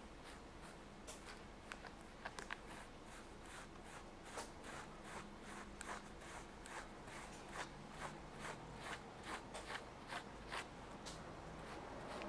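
Slicker brush with wire pins drawn through a cat's fur: a faint run of short scratchy strokes, about two a second.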